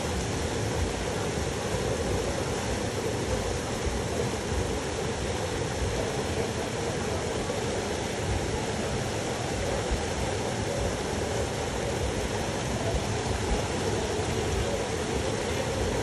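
Steady rush of a small waterfall pouring into a river pool close by.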